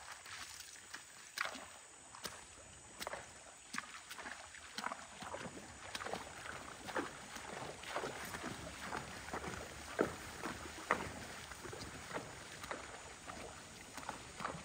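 A horse's hooves splashing through shallow creek water as it wades in at a walk: irregular splashes and sloshing, coming more often from about halfway through.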